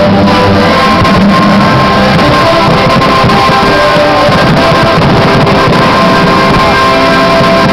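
Music accompanying a fireworks show, played over loudspeakers: loud and steady, with sustained instrumental notes over a dense backing.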